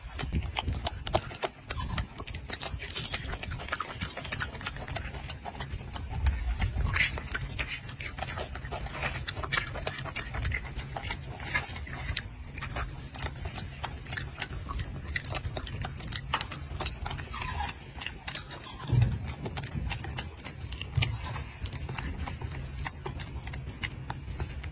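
Close-up, irregular wet clicks and smacks of a golden snub-nosed monkey chewing banana, over a steady low rumble.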